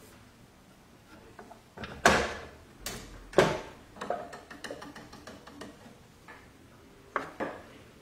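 Metallic clicks and clacks from an old door lock's mechanism being worked. Two loud clacks come about two and three and a half seconds in, followed by a run of lighter ticks, then two more clacks near the end.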